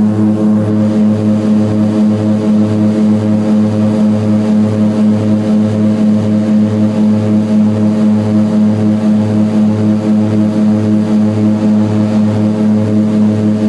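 Seaplane's propeller engines heard from inside the cabin in flight: a loud, steady drone with a slow regular throb of about two pulses a second.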